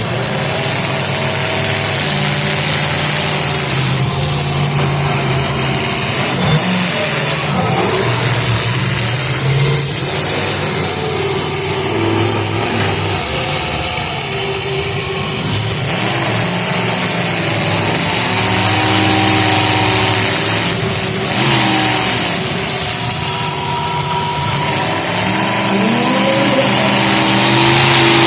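Several demolition-derby car engines revving and idling together, their pitches rising and falling, with a few sudden thumps of cars colliding.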